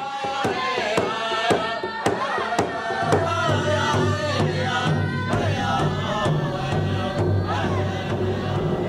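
Group of young voices singing a Lakota song in a high, wavering chant over a large powwow hand drum beaten with padded beaters, a steady beat of about two strokes a second.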